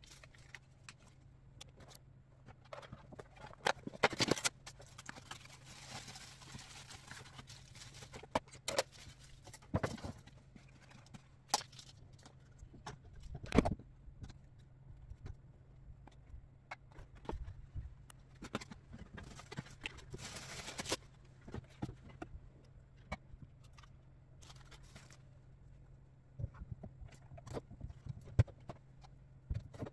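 Irregular knocks and clatter of household items and organizer shelf parts being moved around inside a kitchen sink cabinet, the loudest knocks about 4 and 13 seconds in, with two stretches of rustling.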